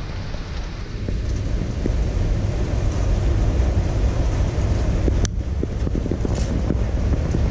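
Wind buffeting the camera's microphone: a low, uneven rumble with small ticks, and one sharp click about five seconds in.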